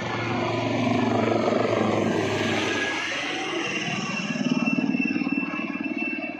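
Aircraft engine noise from a flying display, swelling about a second in. A steady high whine comes in about halfway and holds, over a pulsing low rumble near the end.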